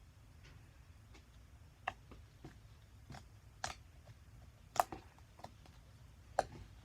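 Fluffy slime being handled, giving scattered small sticky clicks and pops at irregular intervals, the loudest two near the end.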